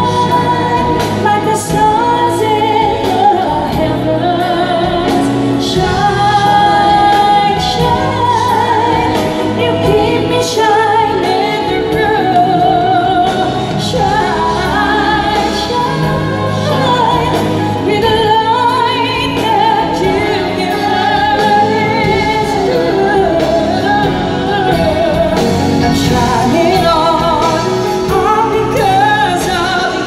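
Live concert singing: voices sung with vibrato over a live band's accompaniment, amplified through a hall's sound system.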